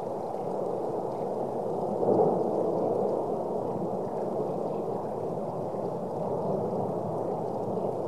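La Palma volcano's vent fountaining lava and spatter: a steady, low rushing noise that swells briefly about two seconds in.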